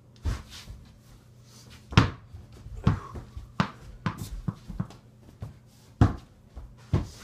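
A mini basketball bouncing and knocking around a bedroom with an over-the-door hoop: about ten irregular thuds and knocks, the loudest about two seconds in and again about six seconds in.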